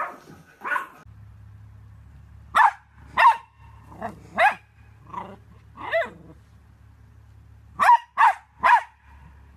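Small terriers barking: about a dozen sharp, high-pitched barks, singly or in pairs, ending with a quick run of three near the end.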